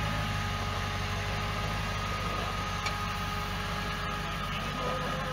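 Jeep rock crawler's engine idling steadily with a low, even hum.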